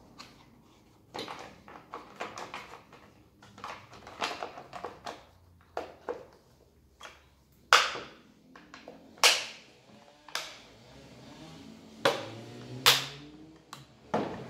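A chainsaw and its covers being handled on a wooden workbench: a string of plastic and metal clicks and knocks, with several sharp, loud knocks in the second half as the saw is set down and lifted.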